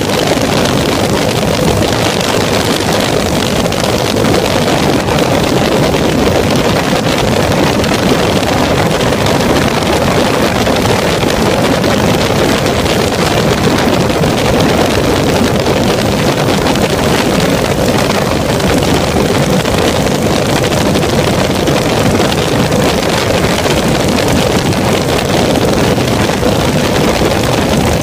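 Weedhopper ultralight aircraft engine running steadily in flight, a loud even drone, with wind buffeting the microphone.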